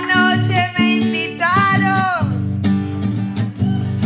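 Acoustic guitar strumming a steady accompaniment while a woman sings a trova, an improvised rhyming Colombian sung verse.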